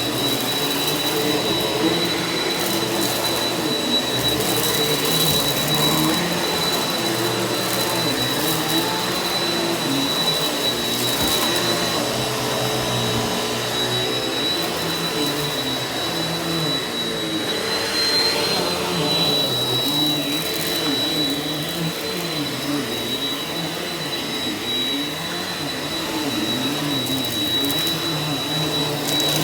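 Eureka NEU180B Power Speed upright vacuum running continuously while pre-vacuuming carpet. It has a steady high whine over a low hum that wavers throughout.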